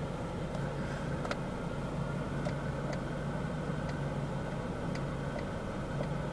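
2011 Ford Focus SE's four-cylinder engine idling steadily, heard from inside the cabin, with a few faint light clicks at irregular moments.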